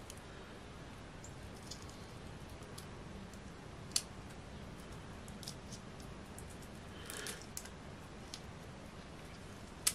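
Faint clicks and crackles of a raw shrimp's shell being peeled off by hand, with a sharper click about four seconds in and a short crackling run about seven seconds in.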